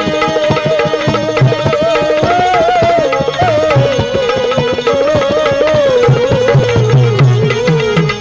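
Bhajan music: tabla keeping a steady rhythm with deep bass strokes, under a single ornamented melody line that slides and wavers in pitch.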